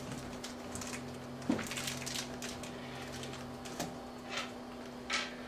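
Several people typing on MacBook laptop keyboards: light, irregular key clicks with a few louder taps, over a steady low hum.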